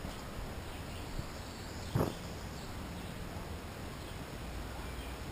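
Woodland ambience: faint high insect or bird chirps over a steady low rumble, with a single dull thump about two seconds in.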